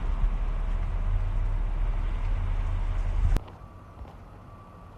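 Steady low rumble of a motor vehicle, as heard from inside the cab while moving. It cuts off abruptly with a click about three and a half seconds in, leaving a much quieter background with a faint steady hum.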